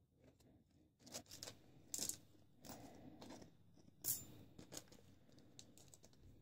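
A small plastic bag crinkling and small etched metal parts clicking as they are handled and set down in a tray: a scattering of faint rustles and light clicks, the sharpest about two and four seconds in.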